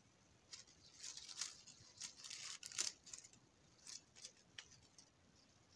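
Faint rustling and crinkling of a handmade flower's petals and leaves being handled in the fingers, in short scattered bursts with small clicks, loudest about three seconds in.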